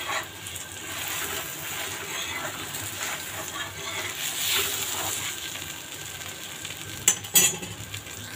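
Dal-stuffed paratha frying in oil on a hot tava, sizzling steadily, with light scraping strokes against the pan and two sharp clicks near the end.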